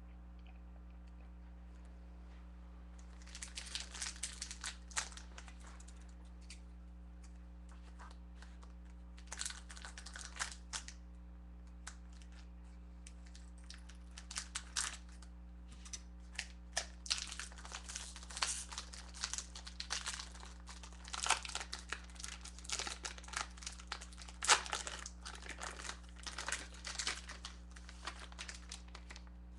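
Trading-card pack wrapper crinkling and tearing as it is opened and handled, in irregular spells of rustling starting about three seconds in, over a steady low electrical hum.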